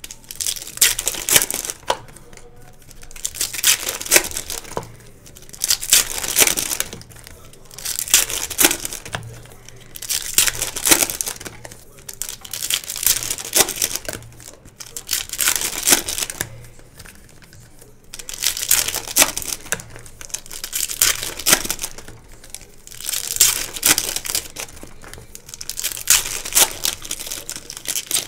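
Trading-card pack wrappers crinkling and tearing as Donruss Optic football packs are opened one after another, a separate crinkling rip about every two seconds, about a dozen in all.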